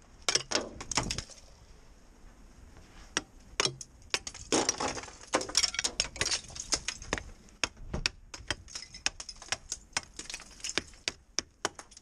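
Icicles along a roof eave being knocked off with a snow brush: a fast, irregular run of sharp cracks, snaps and glassy clinks as the ice breaks and falls, coming thickest in the middle.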